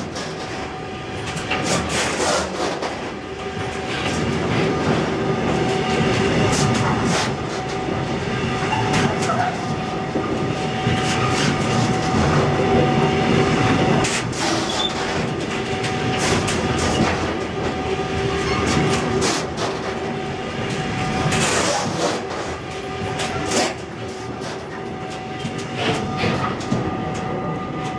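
Freight train of covered hopper wagons rolling past close by, the wheels clacking over rail joints, with a steady whine underneath. It eases a little near the end as the last wagon goes by.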